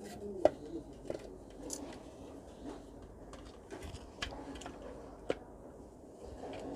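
Scattered small clicks and taps of hand tools and small metal parts being handled at a workbench, with two sharper clicks, one about half a second in and one about five seconds in.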